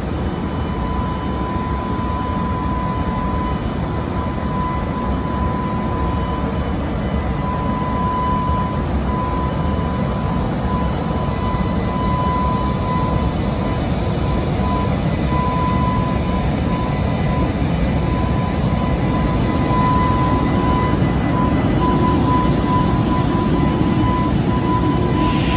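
EH500 electric freight locomotive moving off slowly with a container train, its traction equipment giving a steady high whine over the rumble of the wheels on the rails. The sound grows slowly louder as the locomotive draws past. A brief hiss comes right at the end.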